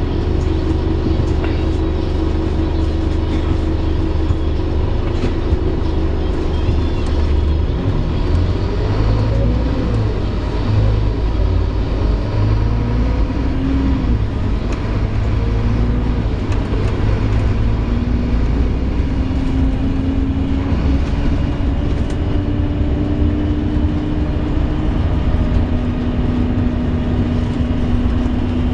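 Scania Omnilink single-decker bus on a K230UB chassis heard from inside while driving: a steady low engine and road rumble with the bus's groaning noise, a tone that wavers up and down in pitch for several seconds midway, then settles into a steady hum that slowly climbs in pitch.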